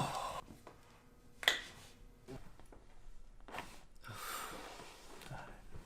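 A single sharp crack of a joint popping during a chiropractic adjustment, about a second and a half in, followed by a fainter click about two seconds later.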